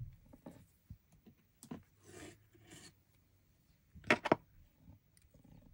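Soft rubbing and rustling as small craft materials are handled, with scattered faint clicks and a brief cluster of sharper clicks and taps about four seconds in.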